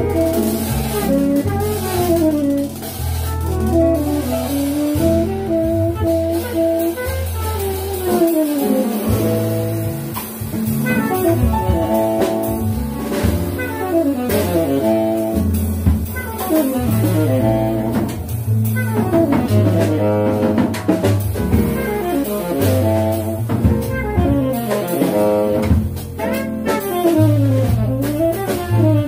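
Live small jazz band: a saxophone plays a running melodic line over walking upright double bass, piano and drum kit.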